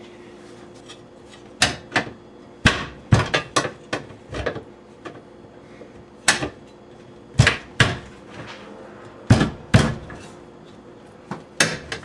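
Gray metal cover of a pull-out electrical disconnect box being handled, fitted and shut. It makes a series of sharp, irregular metal clacks and knocks, about a dozen in all, some in quick pairs.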